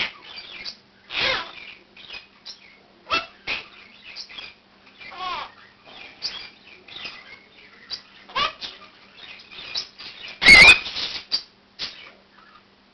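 Pet birds, a Quaker parakeet among them, calling in a run of short chirps and squawks, several sliding in pitch. One much louder, harsher call stands out about ten and a half seconds in.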